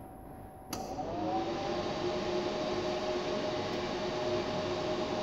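Cooling fan of a Megger Torkel 930 battery load unit switching on under a second in. Its whine rises for a moment, then it runs steadily with a loud rush of air and a steady hum.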